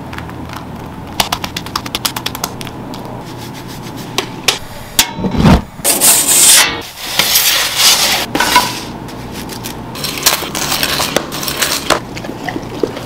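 A run of pizza-making handling sounds. Quick light clicks and taps come first. About halfway through there is a low thump, then loud, uneven scraping and rubbing as a metal pizza peel works in the oven. Softer crackling follows near the end.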